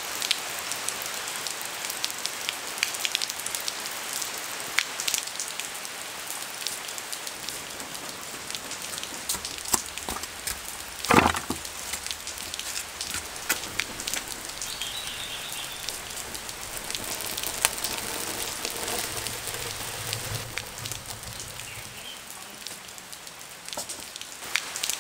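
Steady rain falling, an even hiss scattered with many small drips and splashes. A single louder knock or splash comes about eleven seconds in.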